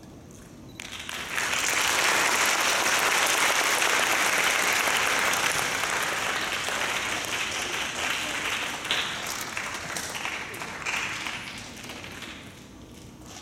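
Audience applauding: the clapping starts about a second in, is at its fullest for a few seconds, then thins to scattered claps and dies away near the end.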